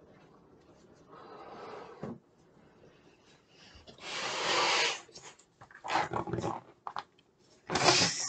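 A pet dog vocalizing in several bursts: a softer whine about a second in, then louder barks, the loudest about four seconds in and again near the end.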